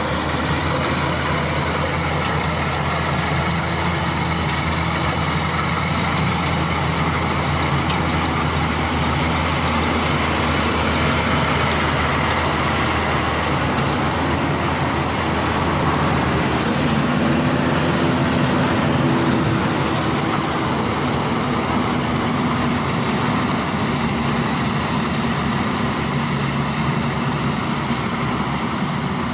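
DR 40 E combine harvester running steadily, its engine drone continuous, with a slight shift in engine pitch around the middle.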